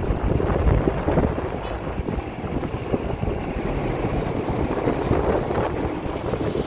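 Gusty sandstorm wind buffeting the phone's microphone: a dense, low, uneven rumble that swells and dips, with street traffic underneath.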